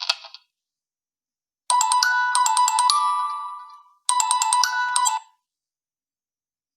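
Preset ringtone melody playing on a BQ Universe smartphone: a bright chiming tune of quick high notes starting about two seconds in and fading out, then a shorter phrase that stops abruptly about five seconds in. The tail of the previous preset melody ends just at the start.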